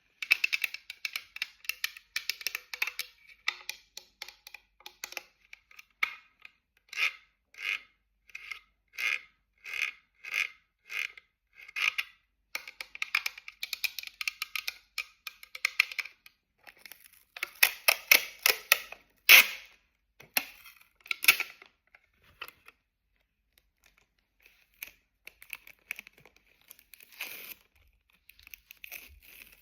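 Close-miked sticky adhesive being peeled apart again and again, with crackly tearing sounds. Dense crackling alternates with a regular run of separate peels about one every 0.7 s, and one sharp loud snap comes about two-thirds of the way through.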